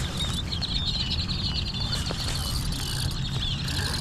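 A chorus of many birds chirping and calling steadily, over a low, steady rumble.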